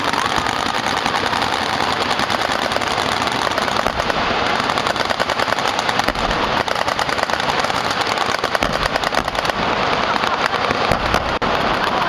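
Many machine guns firing full-auto at once, a continuous dense rattle of shots, with deep booms of target explosions from about six seconds in.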